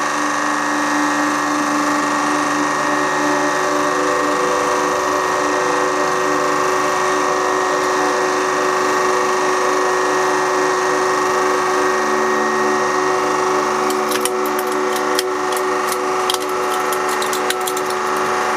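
Hydraulic press running with a steady motor and pump hum as the ram bears down on a hole punch packed with stacked paper. From about three quarters of the way in, a series of sharp cracks and crunches joins the hum as the punch is forced through the paper.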